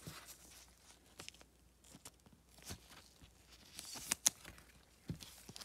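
Trading cards being slid into card sleeves and handled: faint, scattered rustling and light clicks, with a sharper crinkle about four seconds in.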